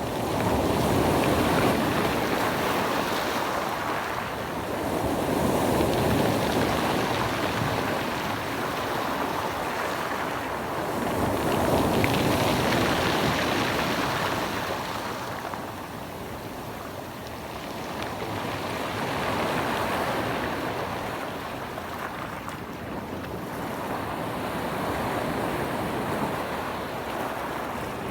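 Mediterranean Sea waves washing in, the sound swelling and easing off every five to eight seconds, with wind on the microphone.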